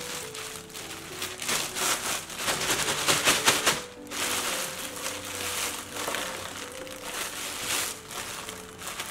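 Plastic bag crinkling and rustling as it is pressed down over cucumbers and gathered closed, loudest about three to four seconds in, over soft background music.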